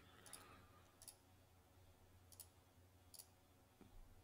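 Faint computer mouse clicks, about four spread over the few seconds, over near silence with a faint steady low hum.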